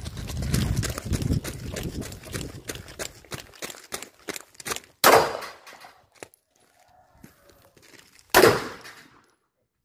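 Running footsteps crunching on gravel, then two handgun shots about three and a half seconds apart, each ringing out briefly after the crack.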